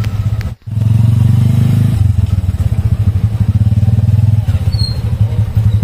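Small motorcycle engine running steadily with a rapid, even pulse, heard from aboard the vehicle. The sound drops out for a moment about half a second in.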